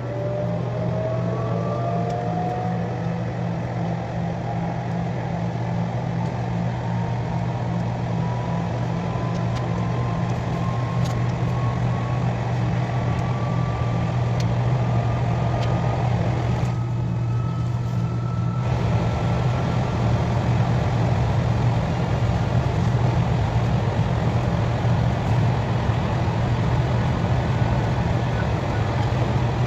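KTX high-speed train running, heard from inside the car: a steady low hum and rushing noise, with a thin whine that rises slowly in pitch as the train gathers speed. The hiss dulls briefly a little past the middle.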